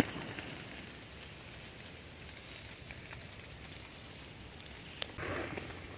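Quiet woodland ambience: a faint, even hiss, with a single small click about five seconds in followed by a brief soft rustle.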